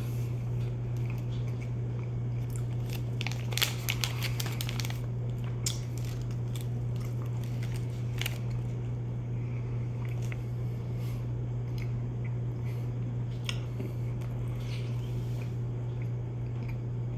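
A person chewing soft cheese, with scattered wet mouth clicks and smacks, thickest a few seconds in. A steady low hum runs underneath.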